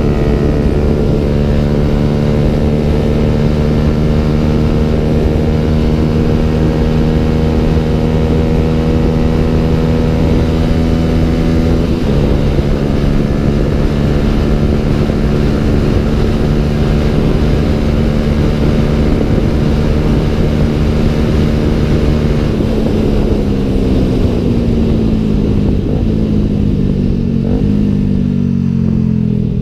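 Yamaha YZF-R125's single-cylinder four-stroke engine through a Danmoto aftermarket exhaust, held at steady high revs while riding, with wind rush. About three-quarters of the way through, the revs drop in several steps as the bike slows and shifts down.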